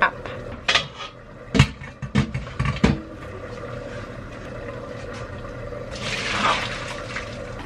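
A few sharp metal clanks of a steel pot being handled. Then boiled pasta water rushes from the pot into the sink as the noodles are drained. A steady low hum runs underneath.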